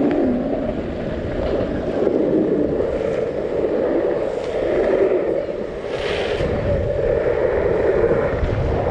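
Longboard wheels rolling fast down a concrete road, a steady rushing roar, with wind buffeting the microphone; a short, brighter hiss about six seconds in.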